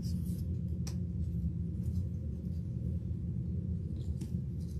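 Steady low background hum of room noise, with two faint clicks, one about a second in and one near the end.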